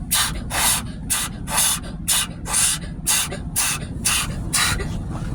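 Automatic car wash equipment sweeping over the car at the protectant stage, heard from inside the cabin: about ten hissing swishes, roughly two a second, that stop shortly before the end, over a steady low rumble.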